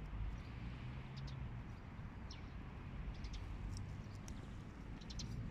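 Small birds chirping, short thin high calls every second or so, a few gliding downward, over a steady low background rumble.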